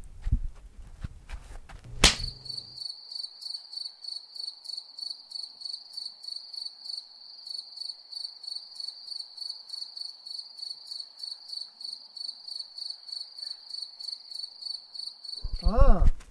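Crickets chirping in a steady, even rhythm of about three chirps a second. The chirping starts abruptly after a sharp click about two seconds in, and a few low knocks come before it.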